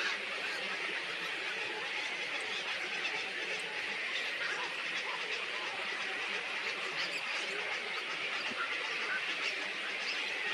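Steady, dense chatter of a large flock of birds, many small calls overlapping without a break.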